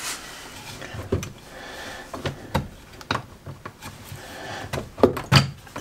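Irregular clicks and knocks of wooden and metal parts being handled and fitted together as the arm and roller of a homemade wooden belt sander are set back onto its frame, with a few sharper knocks near the end.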